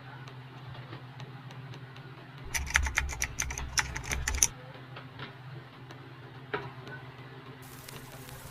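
Scattered light clicks over a steady low hum, with a run of rapid, sharp clicks and taps lasting about two seconds, starting about two and a half seconds in.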